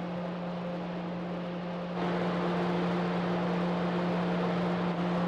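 Car ferry's steady engine and machinery drone heard from the open deck as it leaves port, a low hum under a rushing noise. It gets louder about two seconds in.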